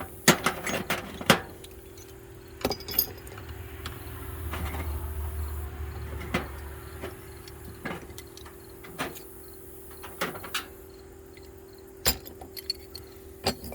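Metal hand tools and sockets clinking and knocking as they are set down in a toolbox, a dozen or so sharp knocks spread irregularly. A low rumble swells and fades in the middle few seconds, over a steady low hum.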